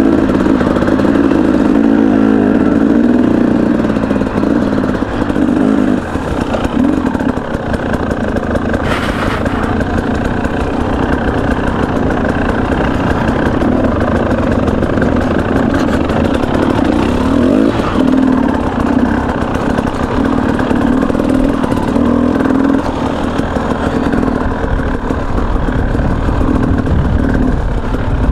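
KTM 300 EXC single-cylinder two-stroke engine running off-road, its pitch and level rising and falling as the throttle is worked.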